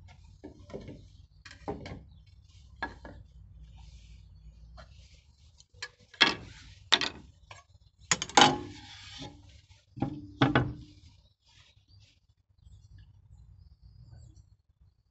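Knocks and clatters of tools and an aluminium saw guide rail being handled and set down on rough-sawn timber beams. They are small at first and louder from about six seconds in; the loudest is a clank with a metallic ring near eight and a half seconds, and two more come near ten and a half seconds.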